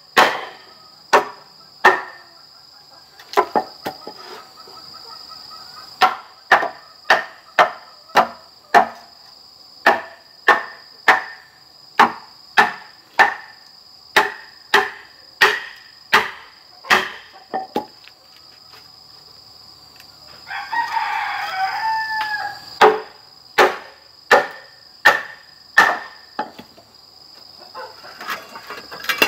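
Repeated sharp knocks of a machete being driven down an upright bamboo pole to split it into strips, about one to two strokes a second with a short pause. A rooster crows once about two-thirds of the way through, over a steady high-pitched drone of insects.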